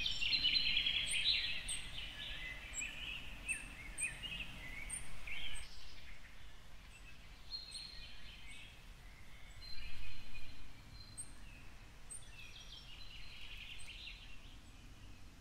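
Outdoor ambience of several birds chirping and trilling over a faint steady background hiss, with short high chirps repeating every second or so. The birdsong is busiest at the start and again late on, and a brief louder swell comes about ten seconds in.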